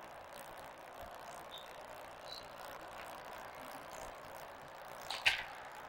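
Steady hiss of the arena and videotape with a couple of faint, short shoe squeaks, then a sharp crack of a squash ball being struck about five seconds in, followed quickly by a second knock.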